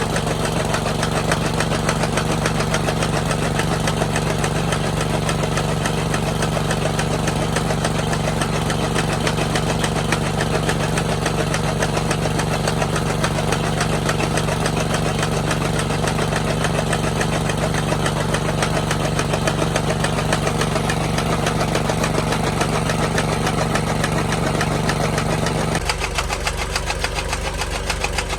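An engine running steadily with a fast, even knocking beat. Its sound changes suddenly about 26 seconds in, losing some of its middle hum.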